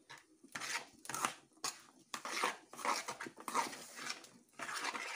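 Metal spoon stirring dry farofa in an aluminium pan: quick, uneven scraping and rustling strokes, about three a second.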